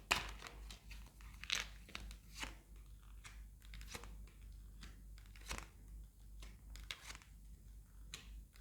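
Tarot cards being handled: faint, irregular crisp snaps and rustles of card stock, about one every second or two.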